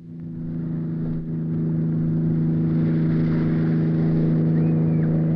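Speedboat engine running steadily under way, its even drone growing louder over the first couple of seconds and then holding.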